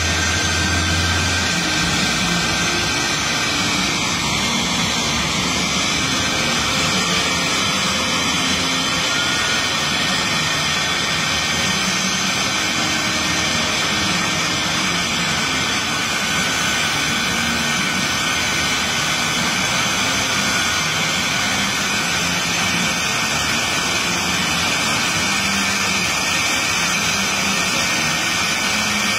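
Shockwave jet truck's jet engines running steadily at the start line: a continuous loud rushing noise with a steady high turbine whine layered through it.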